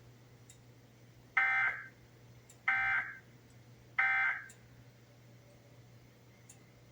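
Emergency Alert System end-of-message signal: three short bursts of SAME digital data tones, a little over a second apart, marking the end of the alert.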